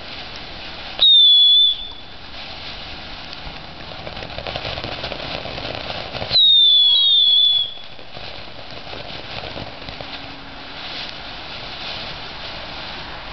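"Screaming bat" ground fountain firework spraying sparks with a steady hiss. Twice it lets out a loud, high-pitched whistling scream that glides slightly down in pitch: about a second in, and again about six seconds in for a little longer.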